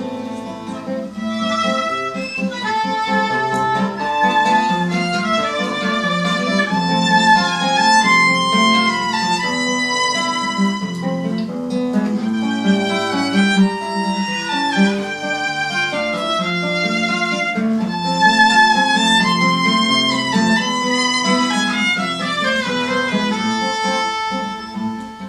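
Instrumental interlude of a song: a violin melody of held, sliding notes over a steady guitar accompaniment.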